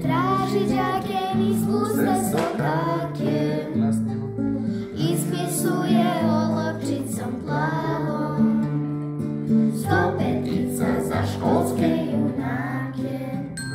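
A group of young children singing a song together in unison, accompanied by a strummed acoustic guitar.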